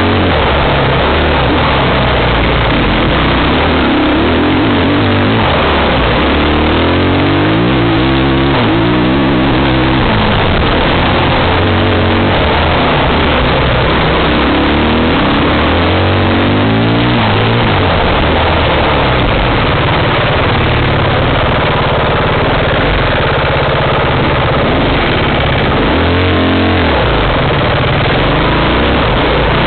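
Dirt bike engine running hard on a trail ride, its pitch climbing and dropping again and again as the throttle opens and closes, over heavy wind noise on the microphone.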